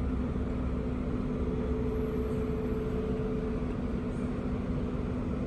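Steady hum and noise of a Sydney Trains Series 2 Waratah electric train at the platform, with two steady electrical tones, the higher one stopping about three and a half seconds in.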